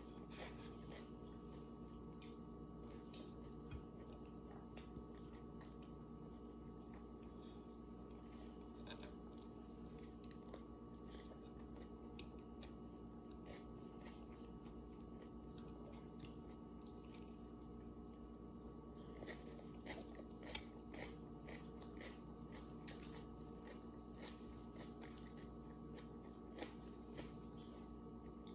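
Close-up chewing and mouth sounds of someone eating a hot dog and rice: soft wet clicks and smacks, with a cluster of them about two-thirds of the way in.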